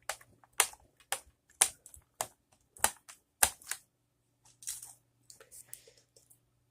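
A screwdriver driving a small screw into the plastic case of a membrane keyboard: a run of sharp clicks about every half second, then fainter scraping and ticking near the end.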